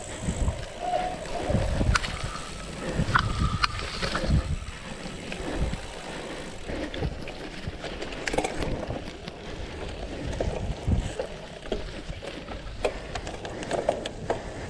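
Wind buffeting the handlebar-mounted camera's microphone over the rumble of a cyclocross bike's tyres on rough grass and then pavement, with scattered knocks and rattles from the bike jolting over bumps.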